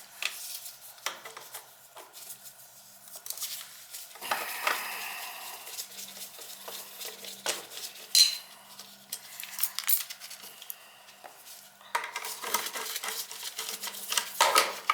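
Irregular metallic clinks and rattles of metal parts and tools at a Beckett oil burner's air inlet, with louder bursts of clatter about four seconds in, around eight seconds and near the end.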